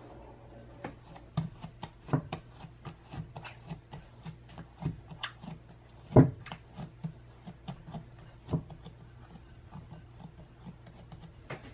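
Hands punching down and pressing risen yomogi bread dough in a glass bowl, degassing it after its rise: a string of soft pats and thumps, a few a second, the loudest about six seconds in.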